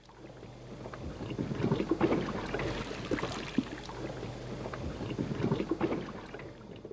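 Underwater noise picked up by a camera underwater: a rushing, sloshing haze with many scattered small clicks and crackles. It fades in at the start and fades out at the end.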